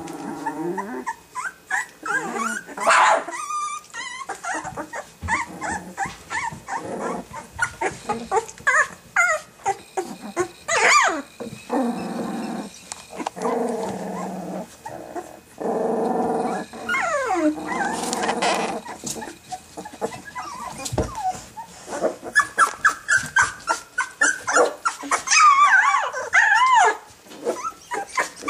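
Litter of two-week-old Rottweiler puppies growling and squealing in short, pitch-bending cries, with a long stretch of rougher growls about midway and a quick run of high squeals near the end.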